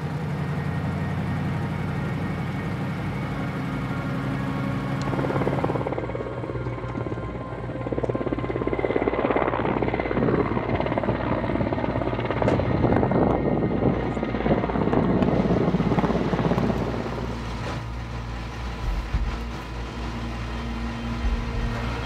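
Helicopter running, with a steady engine drone and the fast chop of its rotor, the sound growing fuller and louder from about eight seconds in.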